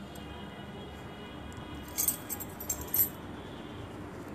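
A few light, quick metallic clinks about two to three seconds in, like keys or bangles jangling, over a low steady background.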